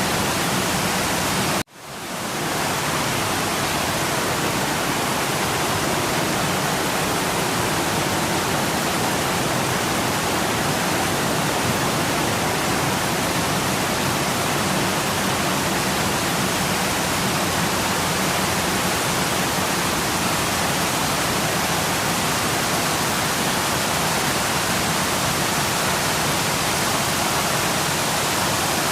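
Waterfall's steady, even rush of falling water. About two seconds in it cuts out suddenly and fades back up within half a second, as at an edit.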